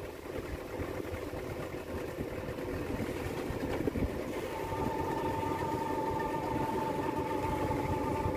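Small wooden boat's motor running steadily while under way, with a steady whine joining about halfway through and the sound growing slightly louder.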